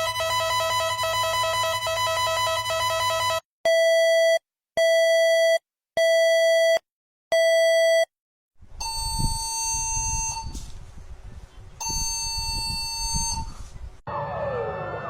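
Emergency Alert System–style alarm. A harsh buzzing tone lasts about three seconds, then four loud, evenly spaced beeps follow. After that comes a rumbling, staticky stretch in which a steady tone sounds twice.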